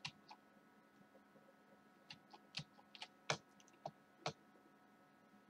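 Faint, scattered clicks at a computer (about ten in all, irregularly spaced, most between two and four and a half seconds in) over a faint steady hum.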